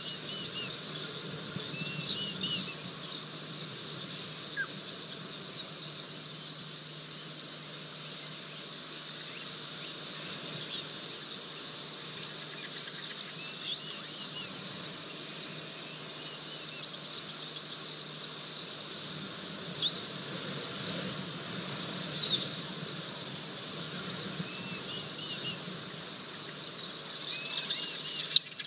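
Outdoor bush ambience: a steady high insect hum with short bird chirps every few seconds, and a loud sharp click near the end.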